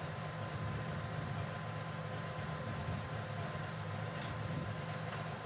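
Harley-Davidson touring motorcycle's V-twin engine idling steadily in neutral.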